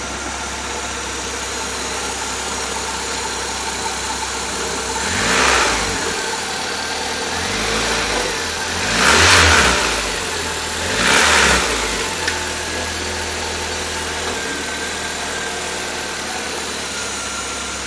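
Suzuki G13 1.3-litre fuel-injected four-cylinder engine running smoothly and quietly at idle on a makeshift exhaust, blipped up in revs and back down three times, about five, nine and eleven seconds in, the middle rev the highest.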